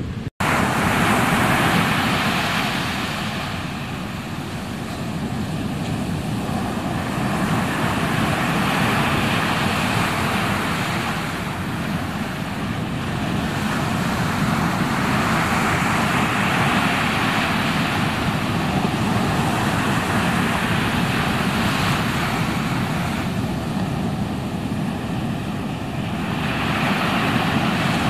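Ocean surf breaking, a steady roar that swells and eases every several seconds.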